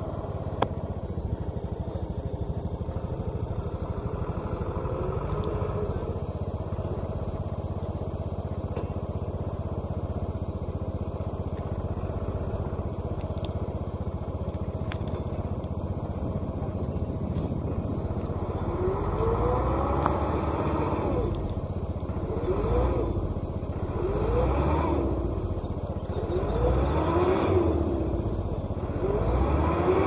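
Diesel engine of a small flatbed truck hauling a tracked combine harvester, running steadily under load. From about two-thirds of the way in it revs up again and again, a rising whine every couple of seconds.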